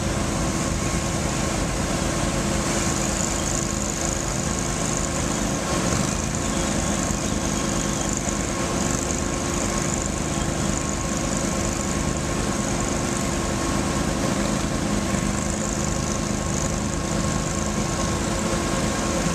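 Small engines of two Argo amphibious ATVs running steadily as the machines wade slowly through shallow muddy water.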